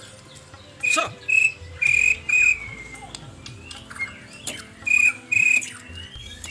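White-rumped shama (murai batu) singing: short, clear whistled notes held at one steady pitch, mostly in pairs, with a quick downward-sweeping note about a second in.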